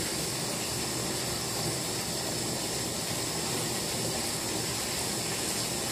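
Bath tap running steadily, water pouring into the tub as it fills.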